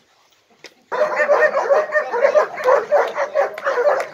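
A pack of German Shepherds and Rottweilers barking and yipping together in a continuous, overlapping din that starts suddenly about a second in, after near silence.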